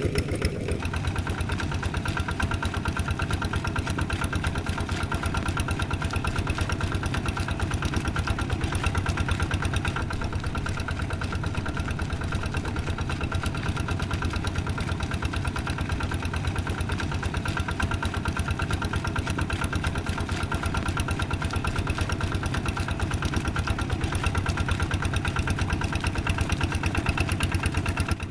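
Kubota RD110DI-2T single-cylinder diesel engine of a Quick G3000 Zeva two-wheel walking tractor running steadily at work in a flooded rice paddy, its firing strokes fast and even.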